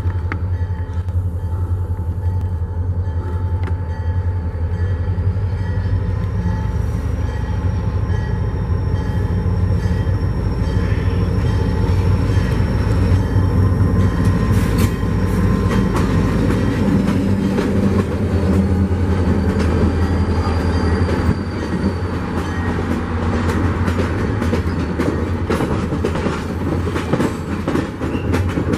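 Diesel locomotive approaching, its engine running with a steady low drone, then passenger cars rolling past close by with the clickety-clack of wheels over rail joints in the second half.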